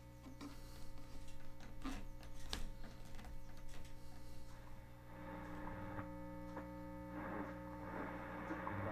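1938 General Electric F-81 tombstone radio on the short-wave band, tuned between stations: a steady hum with scattered crackles of static, and from about five seconds in, a rise of hiss with steady tones.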